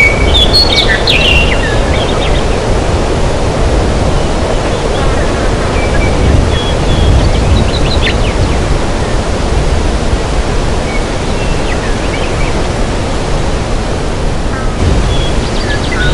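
Forest ambience: a steady rushing noise, heaviest in the low end, with short bird chirps and trills in the first second or so, again around the middle, and near the end.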